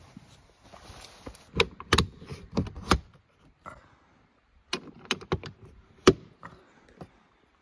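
Sharp knocks, clicks and clatter of gear being handled while the rooftop tent is packed up on the car, in two bursts with the loudest knock about six seconds in.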